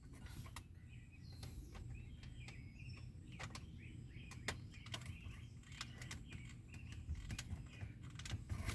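Faint, scattered small clicks and taps of a car's climate control switch unit being handled and fitted into its bracket, over a low steady rumble.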